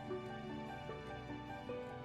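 Soft, gentle background music: slow held instrumental notes.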